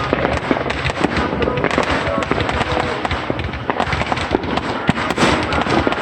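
Fireworks going off in a rapid, continuous barrage: many overlapping cracks, pops and crackles with no break.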